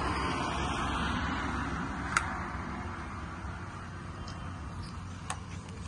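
Road traffic noise that slowly fades away, with two sharp clicks about three seconds apart.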